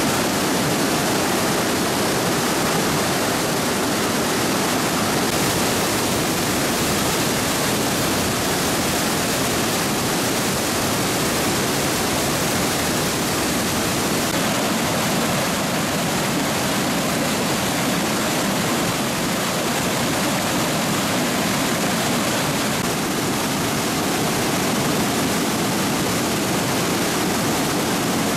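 A normally small creek in flood, running as whitewater rapids: steady, loud rushing of churning water.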